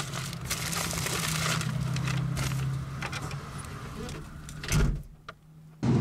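Plastic shopping bags rustling and being set down in a car boot over a steady low hum, then a single heavy thump near the end as the boot lid shuts, after which the sound goes muffled and quiet.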